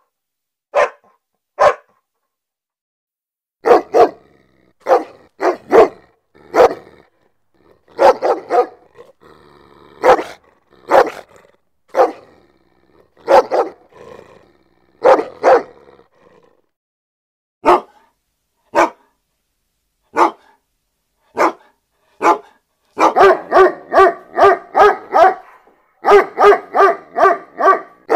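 A dog barking: single barks at irregular gaps, breaking into quick runs of barks, about four a second, in the last five seconds.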